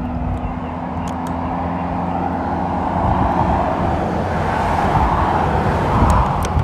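Road traffic: a car approaches and passes close by, its tyre and engine noise building to a peak about five to six seconds in, over a steady low rumble.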